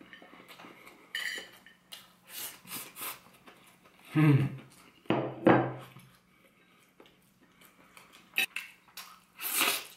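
Metal spoon scraping and clinking against a ceramic plate while scooping rice, in scattered sharp clicks. About four and five and a half seconds in come two short, loud closed-mouth voice hums from the eater.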